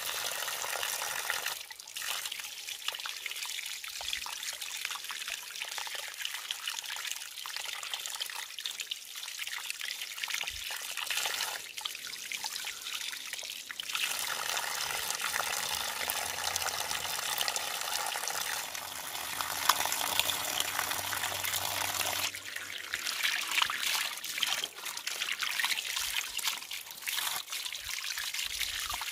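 Water running steadily from a bamboo pipe and splashing onto the rocks and over mussel shells held under the stream. The splash grows fuller for several seconds in the middle.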